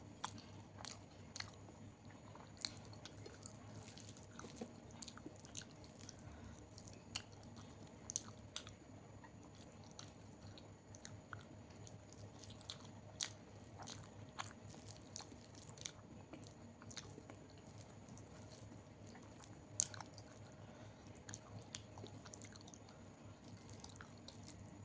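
A person chewing close to the microphone while eating dal, rice and fried vegetables: soft wet mouth clicks and crunchy bites at an irregular pace.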